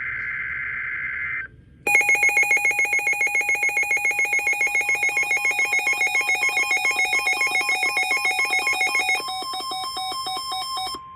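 Emergency Alert System audio: the end of a SAME digital header burst, a brief data screech, then a loud electronic alert alarm beeping rapidly, about six or seven beeps a second. About nine seconds in, the beeps change pitch and a steady 1050 Hz weather-radio warning tone starts beneath them, signalling a warning message is about to follow.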